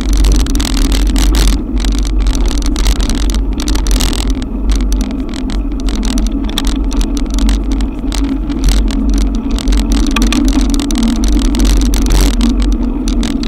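Wind buffeting and heavy rain on an action camera's microphone while riding an e-bike through a cloudburst, with a loud steady rumble and a rapidly flickering hiss of rain and wet road.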